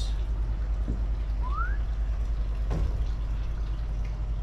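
Steady low mechanical hum, with a short rising squeak about a second and a half in and a light knock near three seconds.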